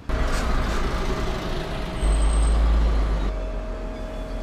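PostAuto bus running with a loud, deep rumble that swells about two seconds in, with a brief hiss of air about half a second in.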